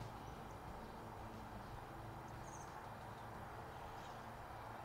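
Quiet outdoor ambience: a steady low hum with a few faint, high bird chirps, the clearest about halfway through.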